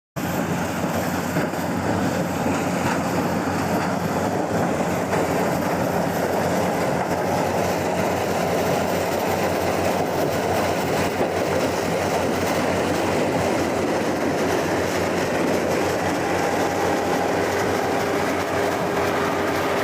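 Yanmar combine harvester, fitted with a maize-harvesting kit, running steadily while harvesting maize: a dense, even mechanical din with a rattling clatter, cutting in abruptly at the start.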